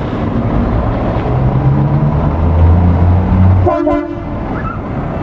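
Scania R-series tractor unit's diesel engine pulling away and passing close by, loudest as it goes past, with a short horn toot just under four seconds in.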